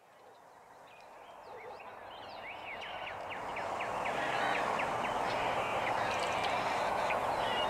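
Birds chirping and calling, many short rising and falling chirps over a steady background noise, fading in gradually from near silence over the first few seconds.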